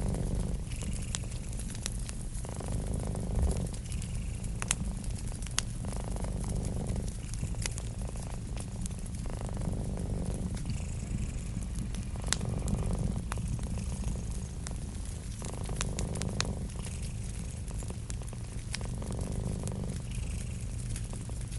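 Cat purring steadily, with the purr swelling on each breath about every three seconds, over a wood fire crackling with scattered sharp pops.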